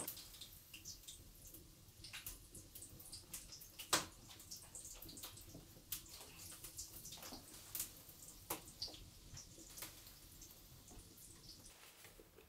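Breaded patties frying in hot oil in a frying pan, a faint sizzle with many small crackling pops, and one louder knock about four seconds in.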